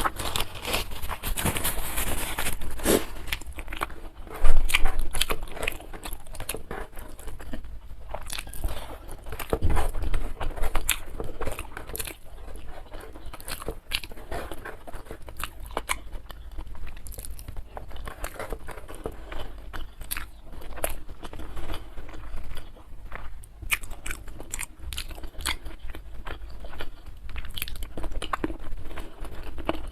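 Close-miked chewing and biting of crunchy food, the crispy fried catfish of the meal, with many sharp crunches. A loud knock comes about four and a half seconds in.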